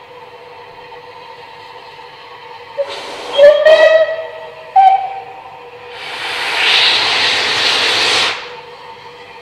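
Steam locomotive whistle: one long blast rising slightly in pitch, then a short higher toot, followed by a loud hiss of steam blowing from the unrebuilt Bulleid Pacific's open cylinder drain cocks for about two seconds.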